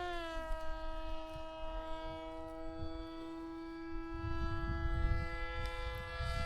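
Electric motor of a foam-board RC Vulcan plane whining steadily in flight. The pitch dips slightly at the start and begins to fall sharply near the end as the throttle is cut for a glide. Wind rumbles on the microphone.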